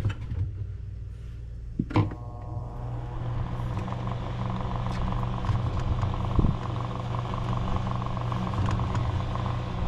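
Refrigerator running after repair, with a steady low hum; a click about two seconds in, after which a steady whirring of the refrigerator's fan builds up and holds.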